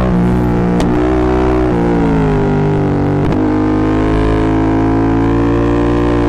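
Yamaha MT-07's parallel-twin engine running through a full Akrapovic exhaust, heard from the rider's seat and distorted by an overloaded microphone. Its pitch falls from about two seconds in, breaks sharply about three seconds in, then climbs slowly again, with another short sharp crack about a second in.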